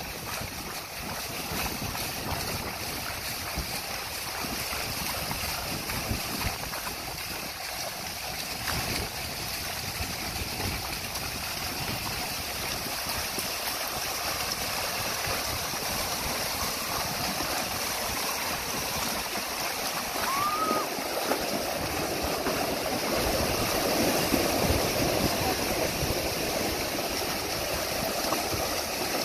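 A herd of horses splashing through shallow floodwater, a steady rush of churning water from many hooves that grows louder in the second half. A short rising-and-falling tone sounds briefly about twenty seconds in.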